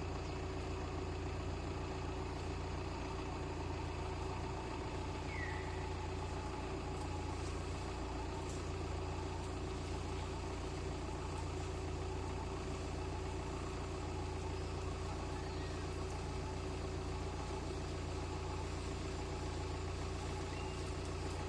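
Vehicle engine idling, a steady low hum that stays even throughout.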